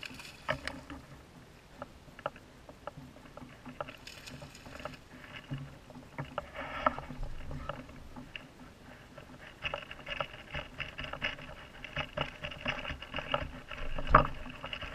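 Kayak paddle splashing in the water, with scattered knocks and clunks of gear and paddle against a plastic fishing kayak. The loudest thump comes near the end.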